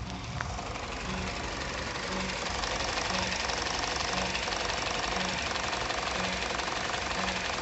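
Citroën C4 1.4 VTi petrol engine running cold, with a rhythmic rubbing noise repeating about once a second over the engine sound. The owner hears this rubbing only for the first few minutes after a cold start.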